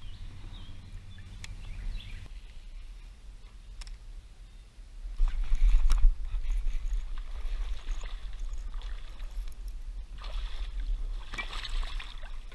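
Water sloshing and splashing around a fishing kayak, with a low rumble that swells loud about five seconds in. Near the end there is a burst of splashing as a bass is let go into the water beside the kayak.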